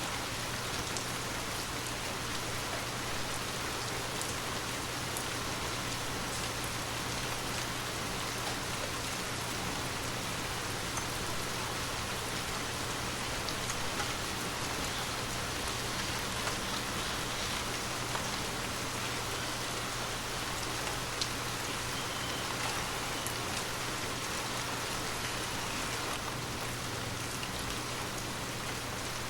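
Gentle rain falling steadily, with scattered drop ticks, over a steady low hum.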